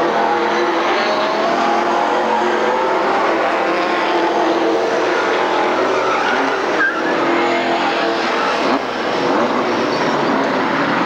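Several stock-car engines running hard on a short oval as cars spin out in a turn, with tires skidding and a brief high squeal about seven seconds in.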